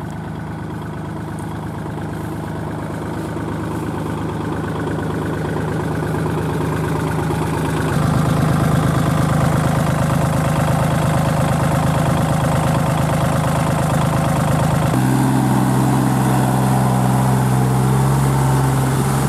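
Kubota L3408 tractor's three-cylinder diesel engine running steadily under load while it drives a rear rotavator through wet paddy mud. The engine note changes abruptly about eight seconds in and again about fifteen seconds in, and grows louder over the first half.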